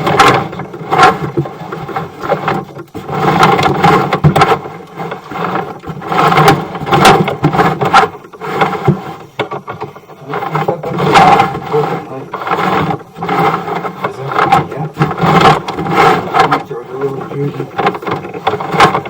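Sewer inspection camera's push cable being fed along the main drain line, with irregular scraping and knocking throughout.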